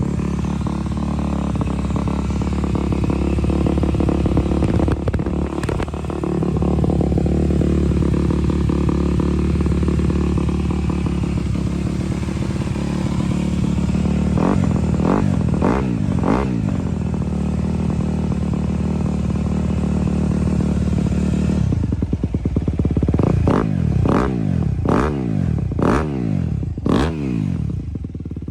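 2020 Honda CRF250R's single-cylinder four-stroke engine idling steadily, with a few quick throttle blips about halfway through and a run of sharper blips near the end.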